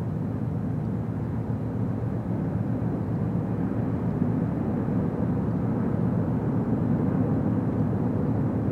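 Steady low rumble of ship engines from the container ship and its tug at work.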